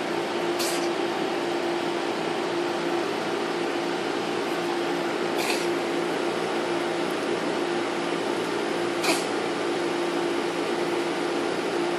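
Domestic cat hacking as it tries to cough up a hairball: three short dry coughs, about half a second, five and a half and nine seconds in, the last the loudest, over a steady background hum with a constant low tone.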